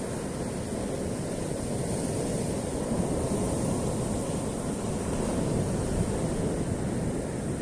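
Black Sea surf washing in, with wind on the microphone: a steady rush that swells a little midway.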